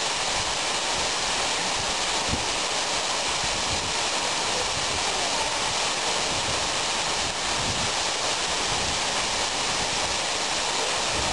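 Steady, unbroken rush of a waterfall pouring into a rock pool.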